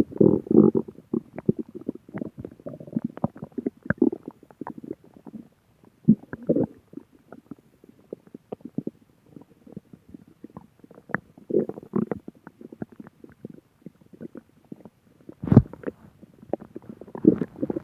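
A person's stomach growling: irregular gurgles and rumbles broken by short quiet gaps, with one louder, sharper gurgle near the end.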